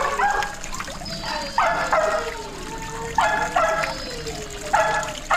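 A dog barking in repeated double barks, about one pair every second and a half, over the steady trickle of a small garden pond fountain.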